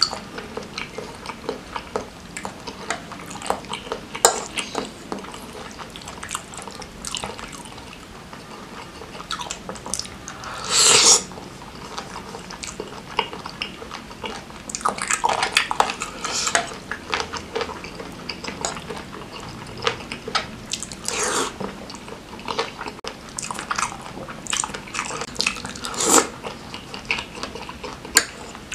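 Close-miked chewing of bakso with tetelan (beef trimmings and fat): wet mouth sounds and frequent short smacks and crackles, with one louder, longer mouth noise about eleven seconds in.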